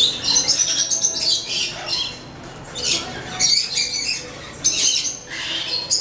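Small parrots, cockatiels among them, chirping and squawking in repeated bursts of high, sharp calls.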